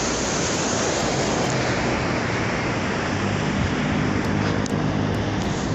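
Steady rushing beach ambience of surf and wind on the microphone, with a low engine hum coming in about halfway through.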